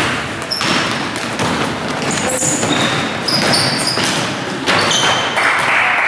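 Basketball game play: the ball bouncing on the court and several short, high-pitched sneaker squeaks over a steady din.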